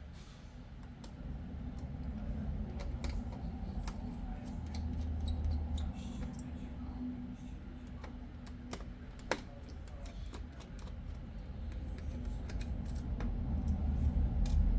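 Scattered small clicks and taps of hand tools and plastic laptop parts being handled during disassembly, with one sharper click about nine seconds in, over a steady low hum.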